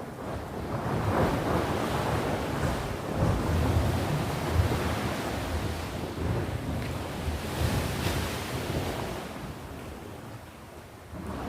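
Sea waves breaking and washing ashore. The sound swells about a second in and fades away near the end.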